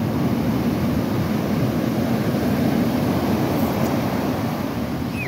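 Surf breaking and washing over the beach, mixed with the outboard motor of a small fishing launch running as it powers out through the waves.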